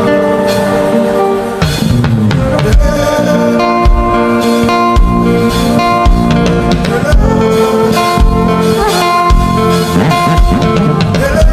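Instrumental worship band music: guitar and sustained chords over a drum kit, with a kick drum beating about once a second.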